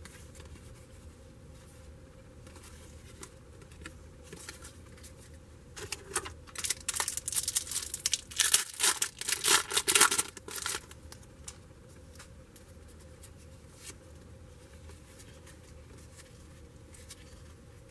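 A trading card pack wrapper being torn open and crinkled: a run of crackly tearing and crinkling bursts starting about six seconds in and lasting about five seconds.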